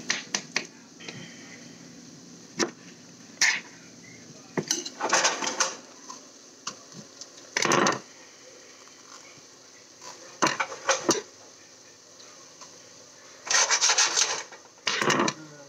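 Kitchen knife knocking and scraping on a countertop while ripe bananas are cut and peeled by hand: scattered sharp knocks, with several short bursts of scraping and rubbing.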